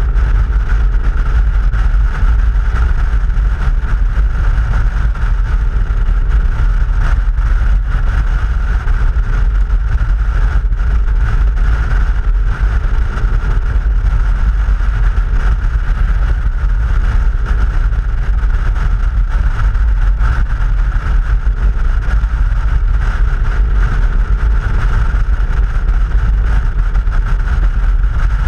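KTM 990 SMT motorcycle cruising at steady speed, heard from a helmet-mounted camera: a heavy, steady wind rumble on the microphone, with the engine note rising and falling faintly underneath.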